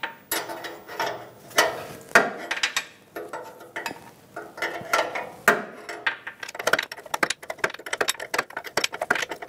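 Metal wrench clinking against the new oxygen sensor and exhaust pipe as it is fitted and snugged down, with a fast run of small clicks in the last few seconds.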